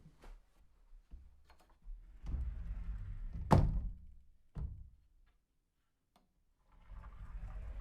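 Sliding closet door rolling along its track with a low rumble, then hitting its stop with a loud thunk, followed by a smaller knock. After a short pause the door starts rolling along the track again near the end.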